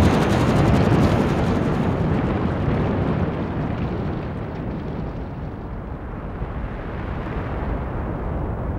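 A loud, deep rumbling roar with no pitch. Its hiss dies away over the first few seconds while the low rumble carries on, slowly getting quieter.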